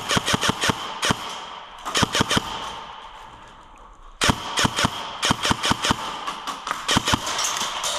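Airsoft gun fire: sharp shots in quick strings of about six a second, coming in several volleys with a pause of over a second in the middle.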